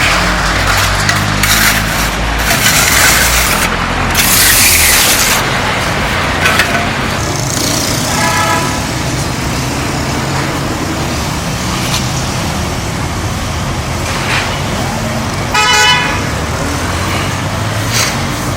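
An engine runs steadily throughout. A vehicle horn sounds twice, briefly about eight seconds in and again near sixteen seconds. Loud hissing bursts come between about two and five seconds in.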